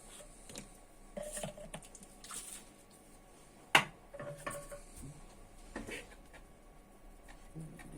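Small handling noises of work on a laptop's processor cooling parts, where the old thermal paste has dried hard: soft rubs and scrapes with a few light taps, and one sharp click about four seconds in.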